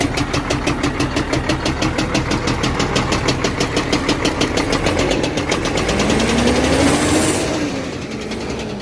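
Renault tractor unit's diesel engine idling with a loud, rapid, even knock from a failing fuel injector. The sound swells about six to seven seconds in, then eases off.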